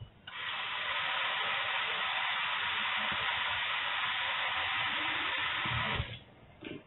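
A steady hiss that starts just after the beginning and stops about six seconds in.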